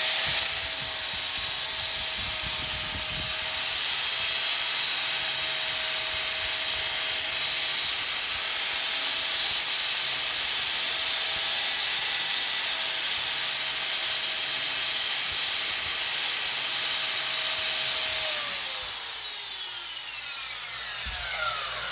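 DeWalt angle grinder with a Walter Enduro-Flex flap disc running at full speed: a steady whine over the hiss of the disc grinding sharp edges off welded metal bar. Near the end it is switched off and winds down, its whine falling in pitch.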